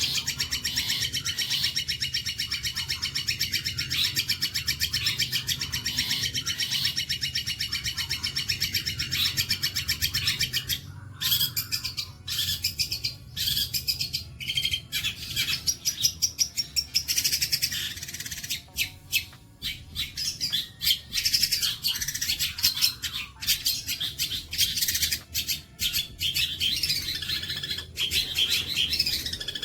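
Songbird singing a fast, continuous high trill for the first ten seconds or so, then breaking into quick chattering runs of varied notes. This is tutor song (masteran) played for long-tailed shrikes to learn.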